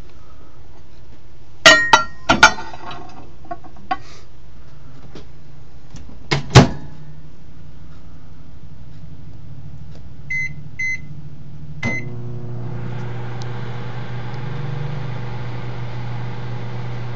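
A few sharp knocks and some clatter, the loudest about six and a half seconds in. Then a microwave oven's keypad beeps three times and the oven starts running with a steady hum.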